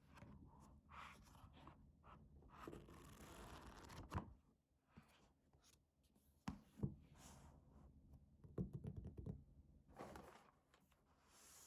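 Faint unboxing handling sounds: packaging rustling and scraping, with two sharp taps about four and seven seconds in and a quick run of small clicks a little later.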